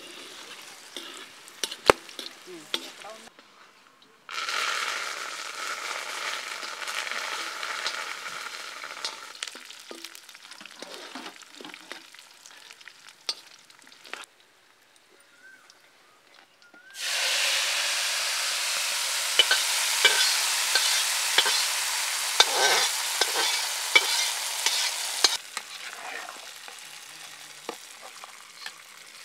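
Dried red chillies and garlic frying in hot oil in a large aluminium wok, sizzling in two loud spells that each start suddenly, with a metal ladle clicking and scraping against the pan as it is stirred.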